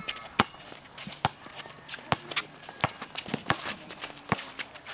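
Basketball dribbled on an outdoor concrete court, a hard bounce a little under every second, with sneaker footsteps and scuffs from players moving around it.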